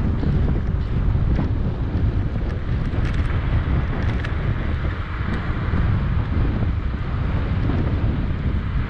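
Wind buffeting the microphone: a loud, steady low rumble with a hiss above it and a few faint ticks.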